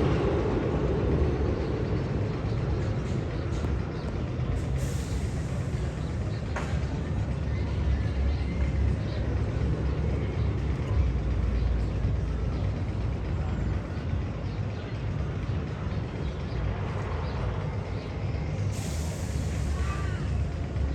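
Steady low rumble of the Magnum XL 200 roller coaster, with two short air hisses, one about five seconds in and one near the end.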